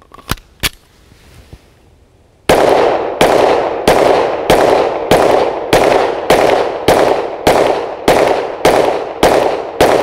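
Sig Sauer M17 9mm pistol fired in steady slow fire, about 13 shots at roughly one every 0.6 seconds starting about two and a half seconds in, each crack trailing off in an echo. Two sharp clicks come in the first second.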